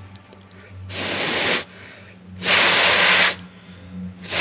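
A person blowing three close puffs of breath onto a smouldering lump of coal to fan it. Each puff is a breathy hiss lasting under a second to about a second, and the third starts near the end.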